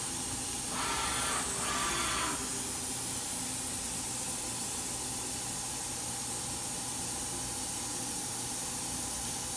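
Daewoo DMV-500 CNC vertical machining center homing its axes to the reference position. Two brief whirs of axis travel come about one and two seconds in, over a steady hiss from the machine.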